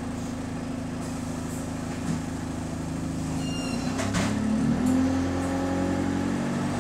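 Bus diesel engine idling steadily, then short high beeps and a brief hiss of air about four seconds in, after which the engine note rises and changes as the bus pulls away.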